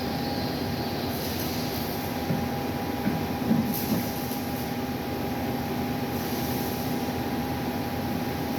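Large diesel generator set running steadily with a constant hum, and a few light knocks a couple of seconds in.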